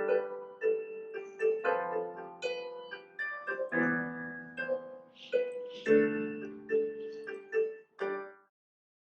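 Piano music: a melody over chords, each note struck and fading, ending abruptly about eight and a half seconds in, followed by silence.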